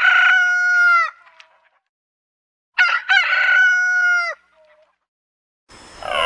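Rooster crowing twice, each crow about a second and a half long with a silent gap between. A different, lower sound starts near the end.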